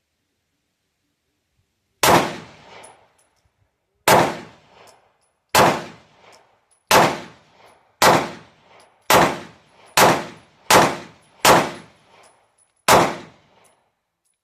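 Ten gunshots from a 3D-printed firearm, fired one at a time with one to two seconds between them, coming quicker toward the end. Each shot is followed by a fainter echo.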